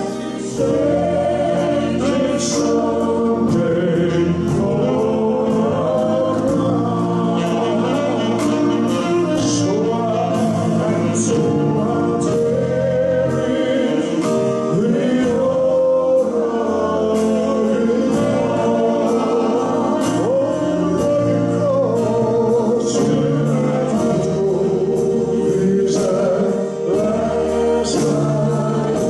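Live gospel song: a man and a woman singing into microphones over a band of keyboard, piano and drums, with cymbals sounding at a steady beat.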